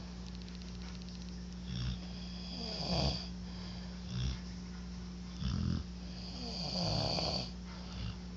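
Two sleepers snoring in turn, about one to two seconds apart: short snores alternating with longer, drawn-out ones. A steady low hum runs underneath.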